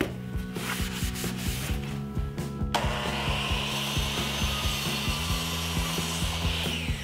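A 10-inch Hitachi sliding compound miter saw starts abruptly about three seconds in, cutting a walnut board with a dense high hiss, then begins winding down with a falling whine near the end. Background music plays underneath.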